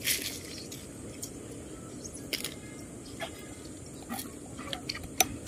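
Knife blade clicking and scraping against green mussel shells as the barnacles are knocked off. Short sharp clicks come about once a second, closer together near the end, over a steady background hiss.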